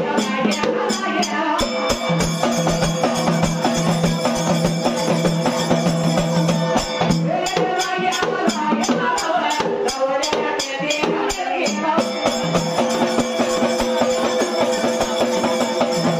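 Dhangar ovi folk music: a large double-headed dhol beaten by hand in a fast, steady rhythm, with jingling hand-held rattles and long held sung notes over it.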